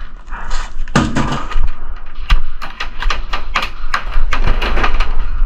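Airsoft gunfire: irregular sharp cracks and clicks of shots and BBs striking nearby, over a steady low rumble of movement and gear.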